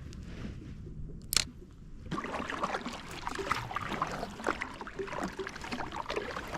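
Water splashing and trickling around a kayak, a dense patter of small drips and splashes starting about two seconds in. One sharp click comes just before it.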